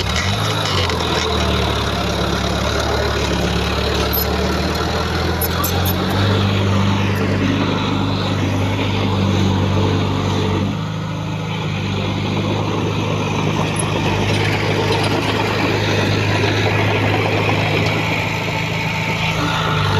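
Diesel engines of heavy earthmoving machinery running steadily under load. The engine note shifts about six seconds in, and drops slightly in level a little past halfway.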